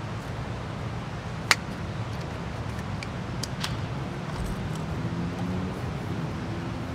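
A single sharp snip as a clear plastic hose is cut with multi-tool scissors, followed by a few light handling clicks of the plastic, over a steady low background rumble.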